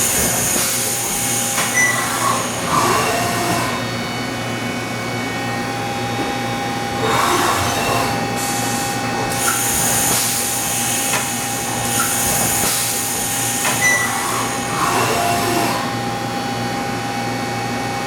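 Haas VF-4SS vertical machining center running: a steady whine of several held tones, with a high hiss that swells and fades every few seconds.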